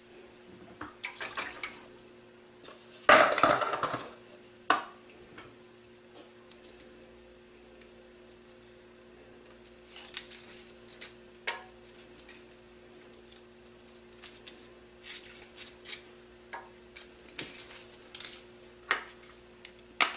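Foil wrappers of bouillon cubes crinkling as they are unwrapped, with scattered light clicks and clatter of the cubes and measuring spoons on a frying pan and countertop. The loudest is a dense rustle of about a second, around three seconds in.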